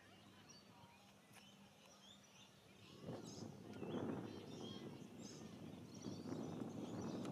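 Birds chirping and calling. About three seconds in, a louder, low rumbling noise comes in and stays.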